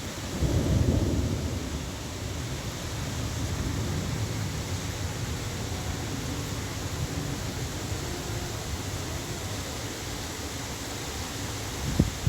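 Steady rain hiss with low thunder rumbling, swelling about half a second in and again near the end with a sharp crack.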